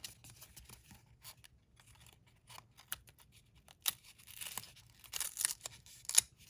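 Paper pages of a small booklet being turned and handled: light rustling of paper with scattered soft ticks and taps, and a longer stretch of rustling from about four seconds in.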